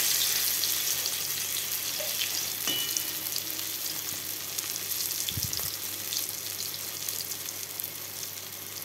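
Slices of a steamed leaf-and-chana-dal roll shallow-frying in refined oil in a metal wok: a steady crackling sizzle that eases gradually, with a brief low thump about halfway.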